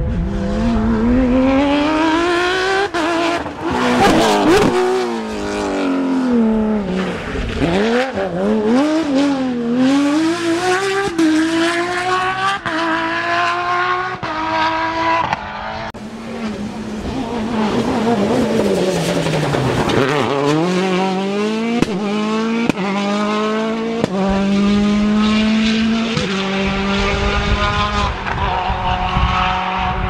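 Rally cars driven hard past on a tarmac stage, one after the other: the engine note climbs through the revs and drops back at each gear change, with sharp cracks at some of the shifts.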